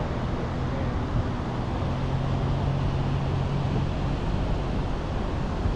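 Chevrolet Colorado ZR2 Bison pickup driving on soft beach sand: a steady engine drone under wind and tyre noise. The engine note steps up slightly about two seconds in and drops back about four seconds in.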